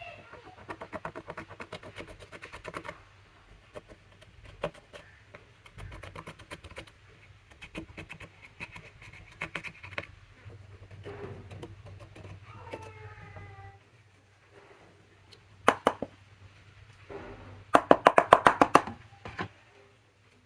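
Slime being squished and kneaded by hand, with sticky wet clicks and pops in uneven runs, and a loud burst of rapid clicking near the end.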